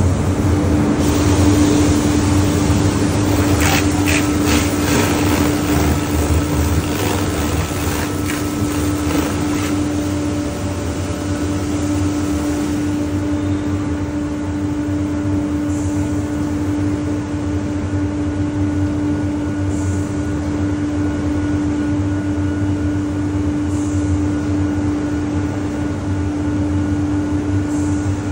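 Ryko Pulse touchless car wash running, with a steady machine hum. High-pressure water sprays with a loud hiss for about the first twelve seconds, then stops, leaving the hum and short hisses about every four seconds.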